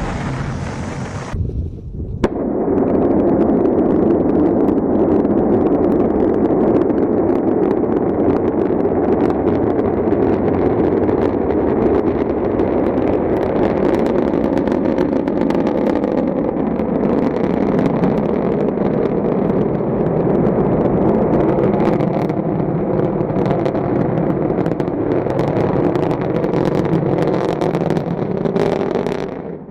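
Rocket engine exhaust roaring steadily with crackle through a launch. It follows a short different clip that cuts off about two seconds in.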